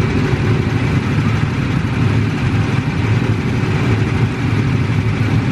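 Several go-kart engines running steadily at idle, a dense low rumble.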